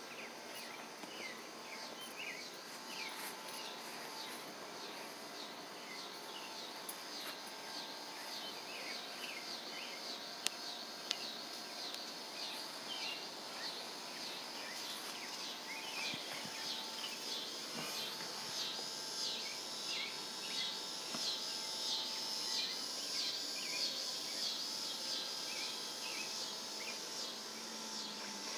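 Outdoor ambience of insects chirping in a steady repeating pattern, growing louder in the second half. Two sharp clicks come about ten seconds in.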